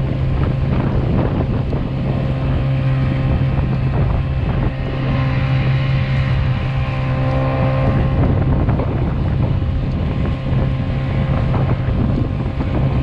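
Honda GX50 50cc four-stroke air-cooled outboard running steadily under way, with wind buffeting the microphone.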